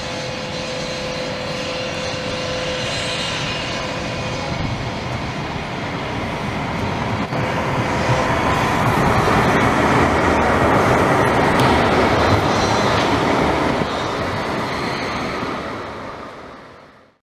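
CAF Urbos tram approaching and passing close by: a steady hum at first, then the rumble of wheels on rail grows loudest as the cars go by, and the sound fades out at the end.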